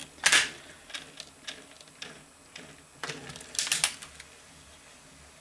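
Mechanical clicks and clacks from a Grundig radio-cassette recorder's keys and tape mechanism being worked during a test of its repaired tape transport. There is a sharp click at the start, a few light ticks, then a cluster of louder clacks about three seconds in.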